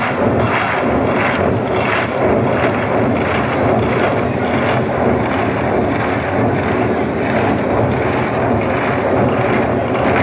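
Hundreds of drummers playing together, a loud, dense wash of massed drumming. Separate beats stand out in the first second or two, then merge into one continuous rumble.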